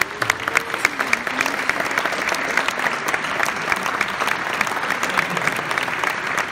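Audience applauding, with one person's hands clapping close to the microphone standing out as sharp, loud claps over the crowd's steady clatter.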